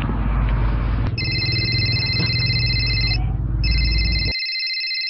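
Mobile phone ringing with an electronic ringtone of steady high tones: two rings of about two seconds each with a short break between them. A low background rumble runs under the first ring and cuts off abruptly partway through the second.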